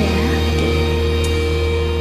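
Karaoke backing track of a slow pop ballad: a held chord over a steady bass, with no singing.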